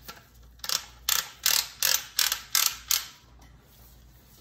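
Magazine cap of a Winchester SXP Defender 12 gauge shotgun being screwed onto the magazine tube. It makes a run of about eight sharp clicks, roughly three a second, as it turns, and then stops about three seconds in.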